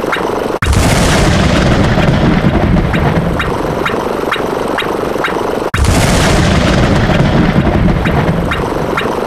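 Explosion sound effect: a sudden loud boom that slowly dies away, heard twice about five seconds apart. Each boom comes after a brief cut in the sound, and a steady clicking at about two a second runs underneath.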